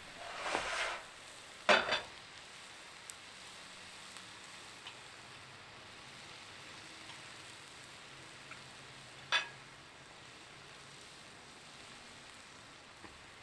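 New York strip steak sizzling steadily and faintly on a hot Blackstone flat-top griddle. A short scraping burst comes right at the start, then a couple of sharp metal taps of a spatula on the griddle about two seconds in, and one more about nine seconds in.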